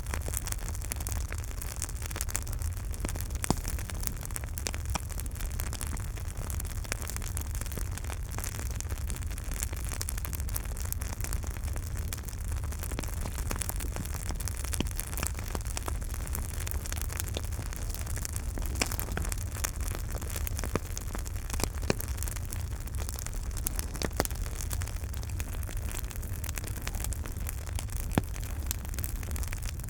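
Campfire burning, a steady hiss and low rumble of flames with frequent small crackles and now and then a sharper pop from the burning wood.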